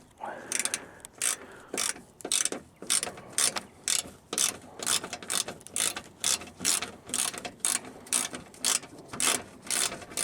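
Ratchet clicking in quick, even strokes, about two or three a second, turning out a fastener on a car's underbody shield.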